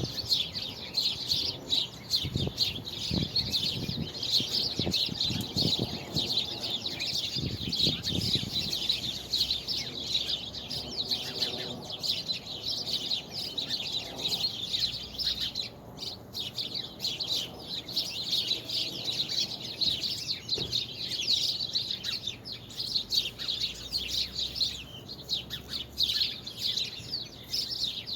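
A flock of small birds chirping and twittering together in a dense, continuous chorus of many overlapping high calls.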